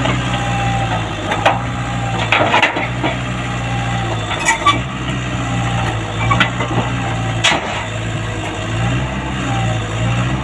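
Komatsu PC75UU mini excavator's diesel engine running steadily as the machine crawls up steel loading ramps onto a truck. Sharp knocks and creaks from the tracks on the ramps come about five times.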